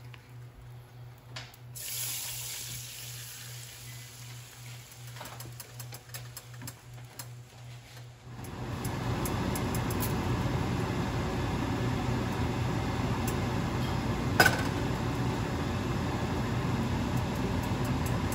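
Dark bistek sauce with chopped onions sizzling in a hot nonstick frying pan. There is a short hiss about two seconds in, then from about eight seconds on a steady, louder sizzle and bubble, with one sharp click partway through.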